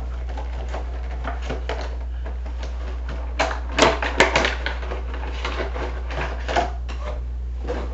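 Plastic and cardboard action-figure packaging being handled: scattered crinkles, taps and clicks that grow busier and louder around the middle, over a steady low hum.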